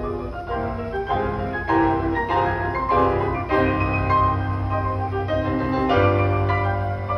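Several Steinway grand pianos playing together in a live ensemble performance, many overlapping notes struck in quick succession.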